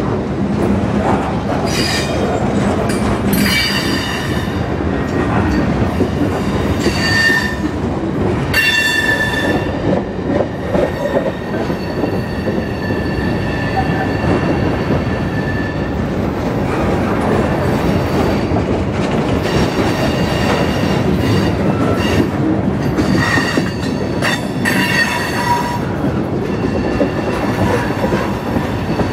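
Freight train of tank cars and covered hoppers rolling past close by: a steady rumble of steel wheels on rail, with high metallic wheel squeal coming and going several times.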